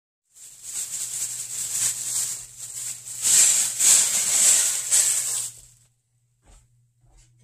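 Rustling and rattling as hands handle a cloth over a kitchen sink, in irregular surges for about five seconds, over a steady low hum. Two faint clicks follow near the end.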